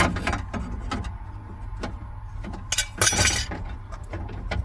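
Light clicks and clinks of metal and plastic parts being worked by hand inside a van door during removal of an exterior door handle, with a louder rattling scrape about three seconds in, over a low steady rumble.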